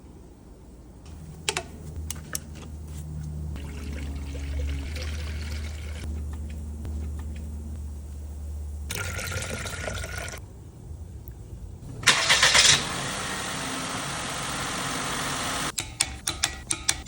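Vehicle engine: a low hum for the first several seconds, then about twelve seconds in a short loud burst like a starter cranking the engine until it catches, followed by steady running. Several sharp clicks come near the end.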